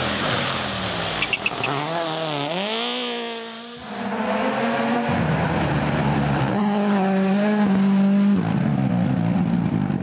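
WRC Rally1 cars' turbocharged four-cylinder engines at full throttle, the engine note rising and dropping with each gear change. After a brief dip about four seconds in, a second car passes with its engine held at high revs, then lifts near the end.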